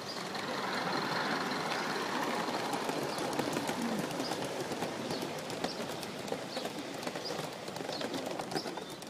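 Gauge one live steam model locomotive running past with its carriages: a rushing noise with faint irregular clicks of wheels on the track. It swells about half a second in and slowly fades, with birds chirping above it.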